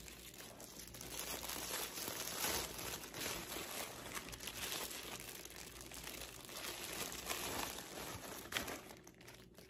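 Packaging crinkling and rustling as a product is unwrapped by hand, with one short sharp tick near the end.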